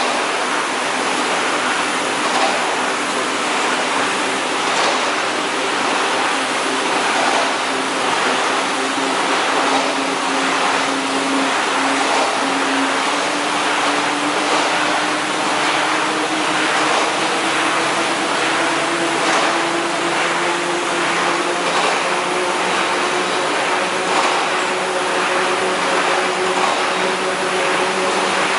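Double-chuck veneer peeling lathe running as it peels a log into a continuous veneer sheet: a steady machine noise with a motor hum that slowly rises in pitch.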